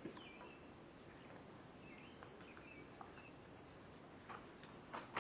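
Near silence, with faint bird chirps in the background and a few soft clicks near the end.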